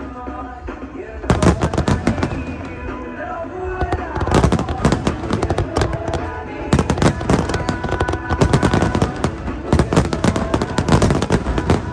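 Fireworks going off in rapid volleys of bangs and crackles, in about four bursts, with music playing underneath.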